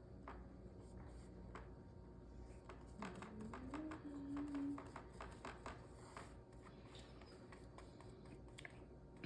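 Paintbrush dabbing and stroking on a canvas, a string of light, faint taps and scratches. About three seconds in, a short hum rises in pitch and then holds for a second or so.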